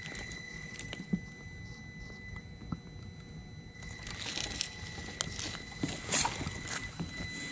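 Traxxas TRX-4M Bronco RC crawler creeping over loose broken boards: the small electric drive whines steadily while the tyres crunch and click on the wood. A few isolated clicks come first, and from about halfway the crunching and clattering of shifting debris gets busier.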